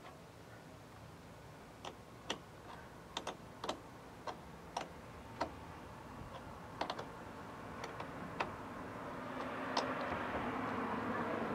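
Small metal hardware clicking and clinking: washers and a nut being fitted onto a carriage bolt at a battery terminal clamp and turned with a small wrench, about a dozen sharp, irregular clicks. A steady rushing noise grows louder near the end.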